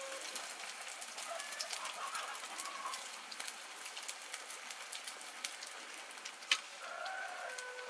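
Hot cooking oil for frying sel roti, crackling faintly: scattered sharp pops over a soft hiss.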